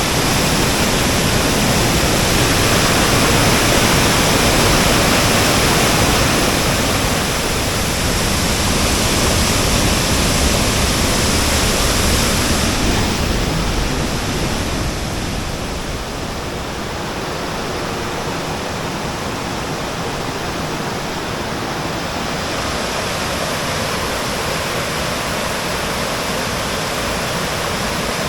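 Waterfall: loud, steady rushing of falling water. About halfway through it becomes a little quieter and less hissy.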